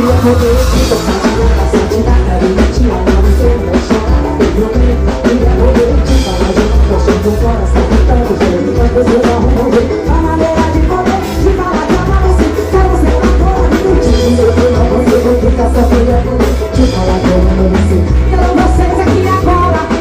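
Live band music with a steady drum-kit beat and heavy bass, melodic lines above.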